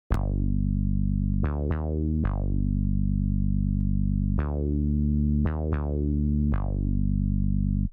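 Image-Line Sawer software synthesizer in FL Studio playing a solo note pattern: each note has a bright, plucky attack that fades into a sustained tone, with a short four-note phrase heard twice. It stops just before the end.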